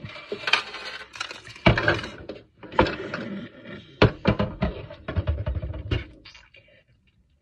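A plastic cleanser bottle knocking and scraping against a hard plastic skincare organiser as it is pushed down into a compartment, with several sharp knocks, dying away about six seconds in.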